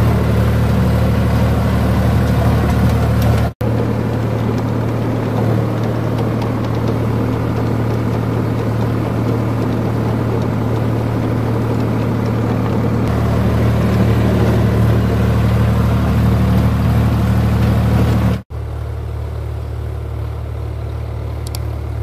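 Sonalika DI 47 RX Sikander tractor's diesel engine running steadily under load while driving a six-foot rotavator through dry soil. The sound breaks off for an instant twice and is quieter after the second break.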